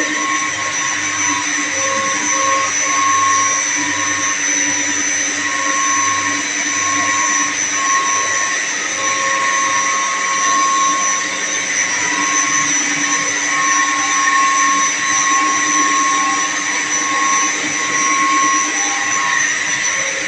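Steady machinery noise from running electric-motor-driven chilled water pumps: a continuous hum with several high, steady whining tones, one of which pulses on and off.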